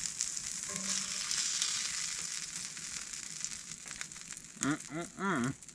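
Sausage patties sizzling in a skillet on a wood stove, the sizzle fading as the patties are lifted out of the pan.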